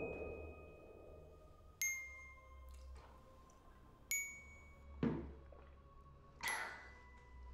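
Three single struck bell-like notes, about two seconds apart and each at a slightly different pitch, ringing out like sparse glockenspiel notes in a film score. Near the end come a soft knock and a short breathy sound.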